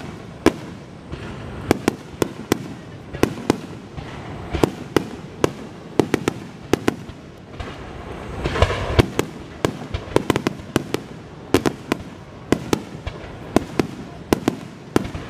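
Fireworks display: aerial shells bursting in quick succession, several sharp bangs a second. About eight to nine seconds in comes a louder, denser barrage.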